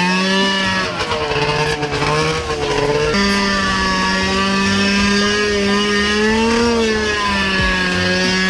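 Two-stroke snowmobile engine swapped into a John Deere Gator UTV, running hard at high revs under throttle. Its pitch holds steady, with small rises and dips as the throttle is worked.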